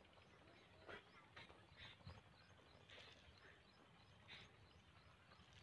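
Near silence: quiet open-air farm ambience with faint, scattered bird chirps every second or so.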